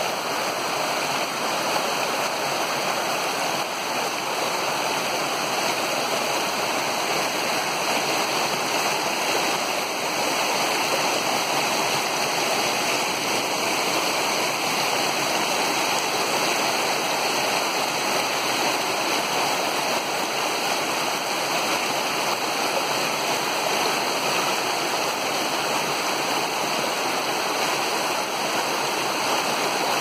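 Small creek cascading over rocks in a short step, the water rushing and splashing steadily.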